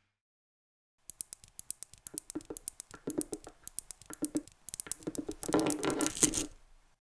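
Small neodymium magnet spheres clicking and clattering against each other: a rapid, irregular run of sharp clicks that starts about a second in, grows denser and louder, and stops shortly before the end.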